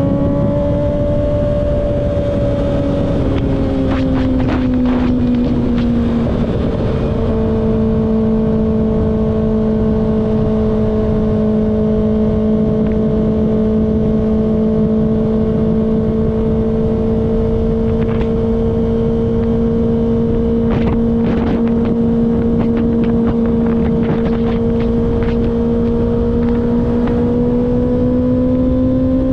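Kawasaki ZX-6R's inline-four engine at a steady cruise, its pitch easing down over the first few seconds, shifting slightly about six seconds in, then holding steady and rising a little near the end, with wind noise rushing over it.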